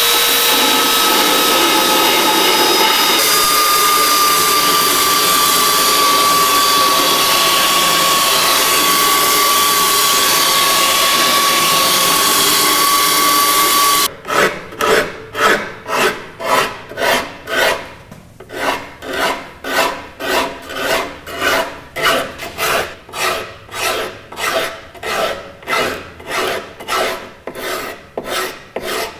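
Belt sander running steadily with a whine, beveling the edge of a wooden transom form. About halfway through it stops, and quick hand rasping strokes on the wood follow, about two a second, with a short pause early on.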